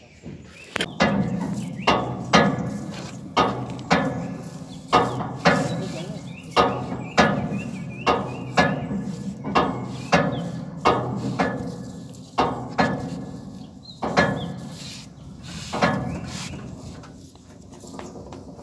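Repeated wooden and metal knocks, about two a second, each with a short metallic ring, from the hauling gear of a hand-pulled river raft-ferry as it is drawn along its rope and chain. The knocks slow and stop near the end, over a low steady hum.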